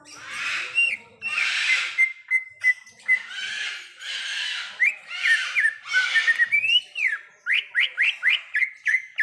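Cucak ijo (green leafbird) singing. Harsh, rasping bursts alternate with clear whistled notes, and near the end comes a quick run of sharp down-slurred whistles, about five a second.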